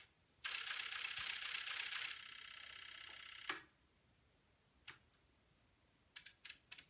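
Relays of a home-built relay computer clattering fast as it runs a short program at a 16 Hz clock, 32 ticks a second, for about three seconds, settling into an even rapid rhythm before stopping with a click. A few single switch clicks from the front panel follow, with a quick run of them near the end.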